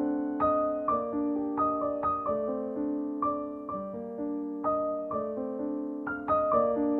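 Soft background piano music: single notes played one after another, a few a second, each ringing and fading.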